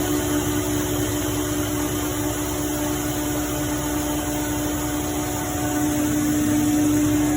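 Ingersoll Rand 15 HP rotary screw air compressor running steadily: an even mechanical hum with a constant tone, growing slightly louder near the end.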